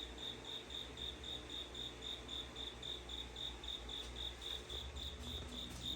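A cricket chirping steadily in a regular, even rhythm of about five high chirps a second.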